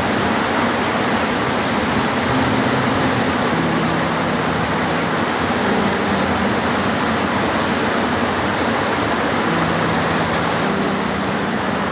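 Steady rain, an even unbroken hiss, with faint low hums coming and going underneath.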